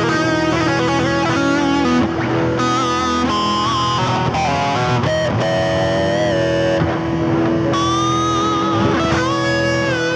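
Electric guitar playing lead lines with bends and vibrato over a steady sustained drone, the held sound of an Electro-Harmonix Freeze sound retainer pedal.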